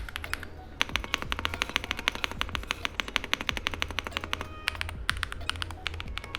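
Fast typing on a mechanical keyboard fitted with Akko Botany switches: a rapid, clacky run of keystrokes with a short pause just before the first second.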